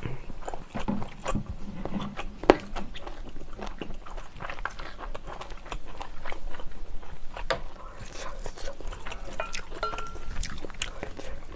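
Close-miked chewing of a large samhap mouthful of grilled pork belly, grilled cheese and scallop: a steady run of wet mouth clicks, smacks and soft crunches.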